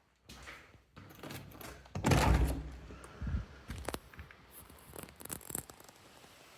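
A series of knocks and thuds: a heavy, deep thud about two seconds in, then several sharper single knocks, ending in a faint steady hiss.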